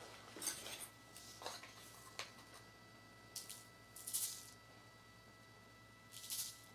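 Sucrose crystals being scooped with a small spatula and tipped onto folded weighing paper on a kitchen scale: faint, short, gritty rattles, a handful of them, the loudest about four seconds in.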